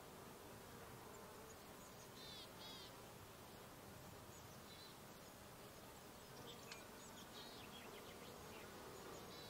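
Faint buzzing of flying insects, bees or flies, wavering over a flowering meadow. A few short high bird chirps come in about two seconds in and again later.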